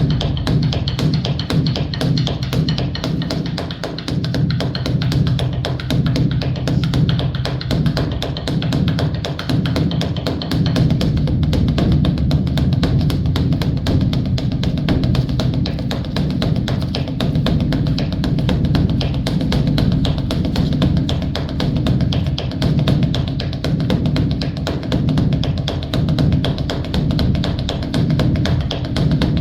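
Large Korean Buddhist dharma drum (beopgo) beaten with sticks in a fast, unbroken stream of strokes, many a second, with a deep booming body.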